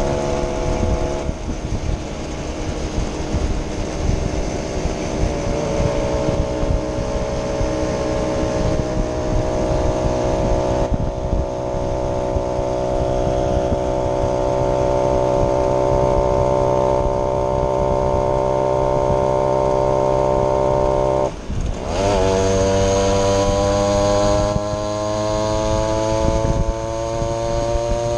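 Small vintage two-stroke moped engine running under way at a steady speed. About 21 seconds in, the note drops out briefly, then climbs steadily as the moped accelerates.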